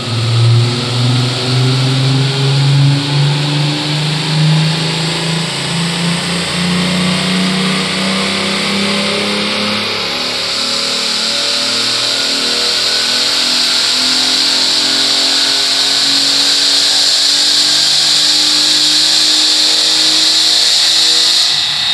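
Volkswagen Jetta wagon's VR6 engine, with intake and muffler delete, making a full-throttle dyno pull in third gear. The engine note climbs steadily in pitch for about twenty seconds, then drops away near the end as the throttle is lifted.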